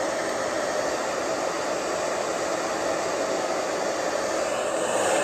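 Handheld hair dryer running steadily: an even rush of blown air with a faint motor hum, used during a wig install.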